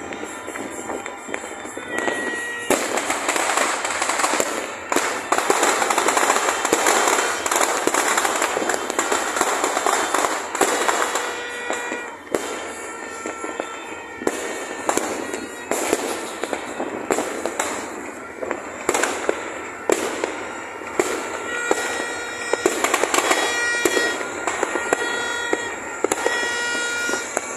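Many fireworks and firecrackers going off at once, a dense, continuous crackle of bangs with no gap, thickest in the first half.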